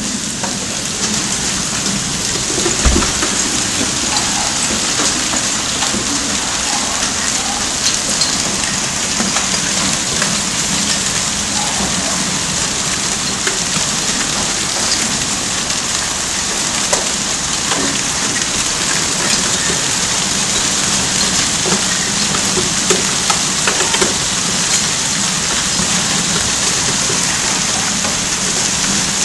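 Hailstorm: hail and heavy rain pelting down in a dense, steady hiss, full of small sharp ticks of hailstones hitting the ground and surfaces. One low thump about three seconds in.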